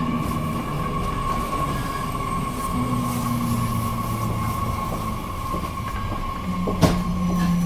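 Inside a JR Kyushu 813 series electric train car: a steady whine and low hums from the onboard electrical equipment, with one sharp click about seven seconds in.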